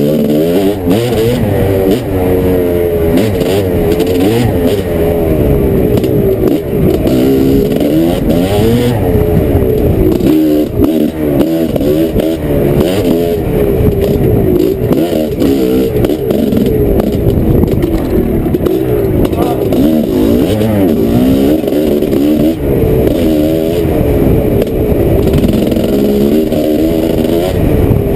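Dirt bike engine running hard and revving up and down over and over under the throttle, its pitch rising and falling every second or so.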